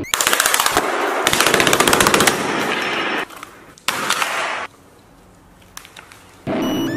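A rapid string of sharp bangs, many per second, for about three seconds, like automatic gunfire or a string of firecrackers, followed by a short noisy burst about four seconds in.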